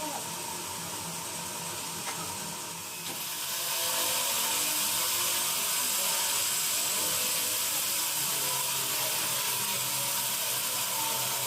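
Band sawmill cutting teak wood: a steady hiss of the blade and machine that grows louder and brighter about three seconds in, then holds steady.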